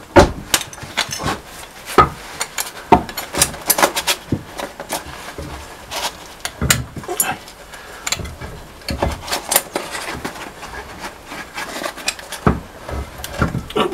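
Irregular metallic knocks, clunks and scraping as a heavy cast-iron flywheel is handled and fitted onto the crankshaft flange of a small four-cylinder marine diesel.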